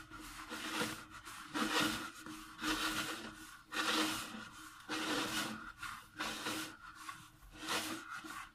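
Hands working a soft durum-wheat (semola) and lard dough in a plastic bowl, the dough rubbing and scraping against the bowl. The strokes come in swells about once a second.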